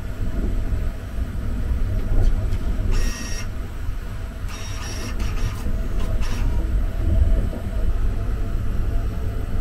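Motorized shower-card reader pulling in a card, reading it and pushing it back out: two short mechanical whirs, about three and five seconds in, with a few clicks after them. Under them runs the steady low rumble of the moving sleeper train.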